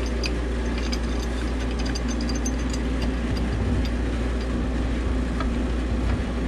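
Steady low hum of running machinery, even throughout, with a few faint light clicks over it.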